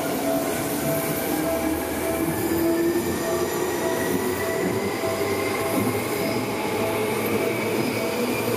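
Yellow Seibu commuter electric train running past along the platform, with a steady high squeal and a rumble of wheels. About two seconds in, a whine starts rising slowly in pitch as the train gathers speed.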